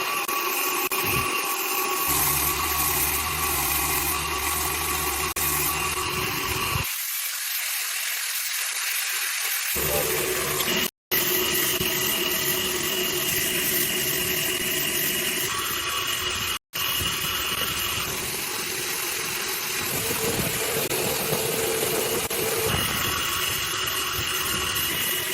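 Steady machine noise with a hiss and a few held tones, as from a power tool or motor running in a workshop. It comes in edited segments, and twice cuts out abruptly for an instant.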